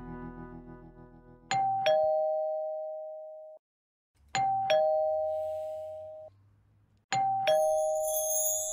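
Two-tone ding-dong doorbell chime rung three times, about three seconds apart: each time a high note and then a lower one ring on together and stop abruptly.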